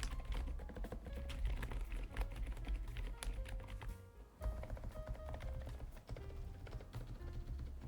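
Fast typing on a Lofree Flow Lite low-profile mechanical keyboard with full-POM switches: a dense run of keystroke clicks that pauses briefly a little past halfway. Background music with a strong bass plays underneath.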